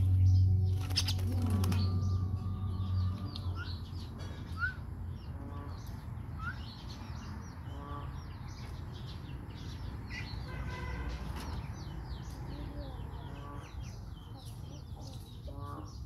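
Young common mynas in a wire cage chirping and calling while being hand-fed insects, with wings flapping against the cage in the first two seconds. A steady low hum is the loudest sound for the first three seconds.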